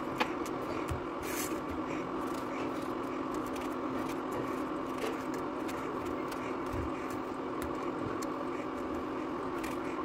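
Steady hum of a running motor or fan, with a few faint clicks and scrapes of a small knife peeling and slitting an eggplant.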